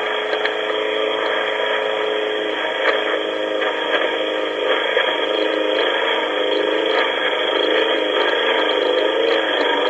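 Lawn mower engine running, picked up by a home phone carried in a front pocket and played back from voicemail, so it sounds thin and muffled like a phone line. The engine note holds steady, then wavers in pitch in the second half.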